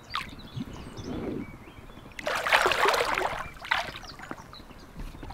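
Water splashing and sloshing in loud, noisy bursts, the first about two seconds in and a shorter one soon after.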